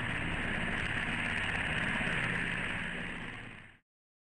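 Coast Guard helicopter running on the ground: a steady turbine hiss over a low engine and rotor drone. It fades out to silence near the end.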